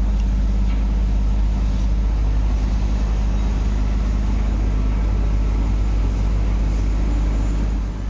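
Large engine running steadily: a deep, even drone with a constant low hum.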